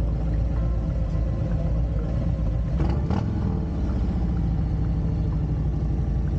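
Harley-Davidson V-twin motorcycle engine running steadily, with a brief change in its sound about three seconds in.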